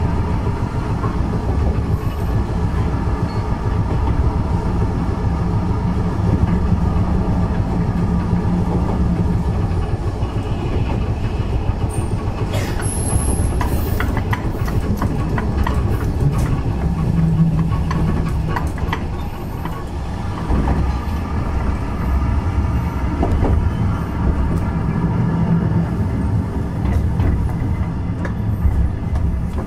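Keifuku Randen tram car 631 running along the Kitano Line, heard on board: a steady low rumble from wheels and running gear, with a motor hum that swells and fades now and then. Through the middle come clicks of the wheels passing over rail joints.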